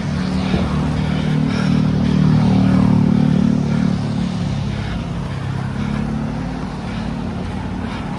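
A motor vehicle engine running close by, with a steady low hum that swells a couple of seconds in and then eases off.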